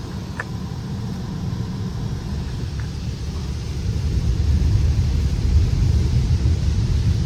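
High-pressure water jets of an automatic car wash hitting the car's body and windshield, heard from inside the closed cabin as a steady low rumble that grows louder about four seconds in.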